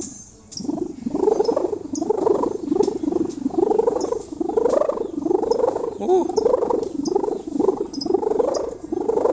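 Sendaren kite hummer made of packing strap and plastic film, droning in the wind with a snoring ('ngorok') sound. It sets in under a second in and swells and fades in an even pulse, nearly two swells a second.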